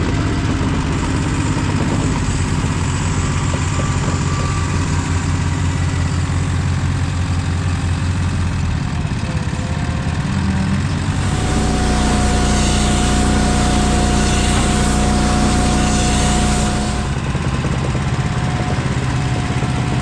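Diesel engine of a JCB compact track loader running while it loads a round silage bale onto a bale tube wrapper. From about 11 to 17 seconds in the engine runs louder with a steadier, heavier note, and a steady high whine sounds over it.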